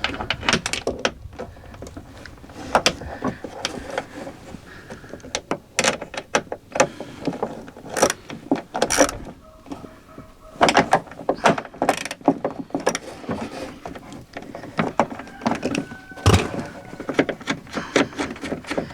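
Ratchet and socket clicking in short runs, with metal clinks and knocks, as the 10mm nuts holding a car door check strap are worked loose inside the door; one heavier knock comes near the end.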